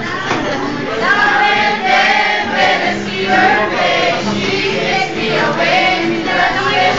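A mixed group of teenage girls and boys singing together as a class choir, holding long sung notes.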